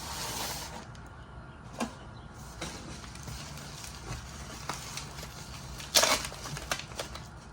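Handling of packaging and small miniature concrete slabs: rustling with scattered light clicks, and a louder rustle about six seconds in.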